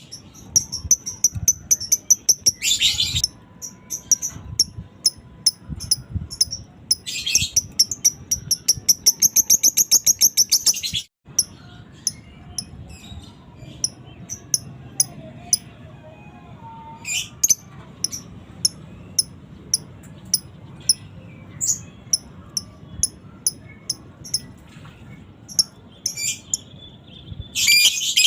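Lovebird chattering: rapid runs of sharp, high chirps (the 'ngekek' call), with a short break just after the middle and then scattered single chirps.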